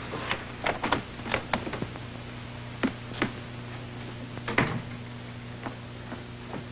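Scattered knocks and clicks of a door being shut and footsteps on the floor: a quick run of them at first, then single knocks a few seconds apart. They sit over the steady hum and hiss of an old optical film soundtrack.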